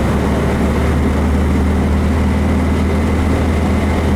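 Freshly built Volkswagen 1776 cc air-cooled flat-four engine running at a steady speed under way, heard from inside the car as an even, low drone.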